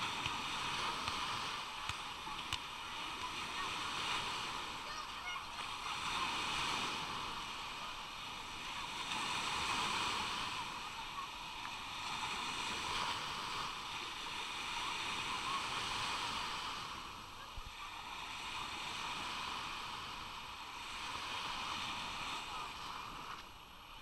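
Small waves breaking and washing up on a sandy beach, a steady hiss that swells and eases every few seconds.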